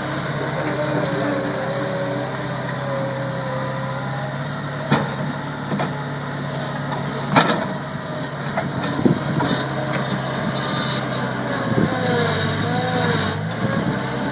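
Bobcat 743 skid steer loader's engine running steadily while it works, with a wavering whine over it and a few sharp knocks about five, seven and nine seconds in.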